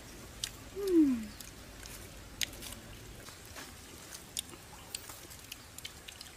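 A single short falling call about a second in. Then faint scattered clicks and smacks of grilled fish being picked apart and chewed.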